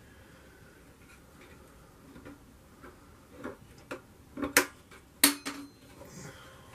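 Small ticks and clicks from a freezer cabinet's trim strip and its retaining clips being handled and worked into place, with two sharp loud snaps about four and a half and five seconds in.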